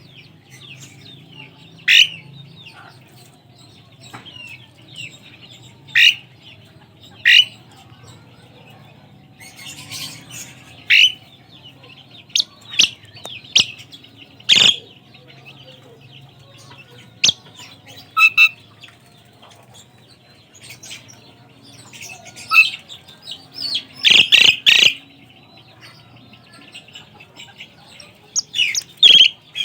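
Asian pied starling giving short, sharp whistled and harsh calls at irregular intervals, several seconds apart, with denser runs of calls about ten and about twenty-four seconds in.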